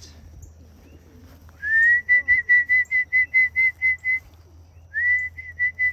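A person whistling a pigeon call to bring homing pigeons into the loft: two phrases, each a short rising note that then breaks into a quick run of repeated high notes, about five a second.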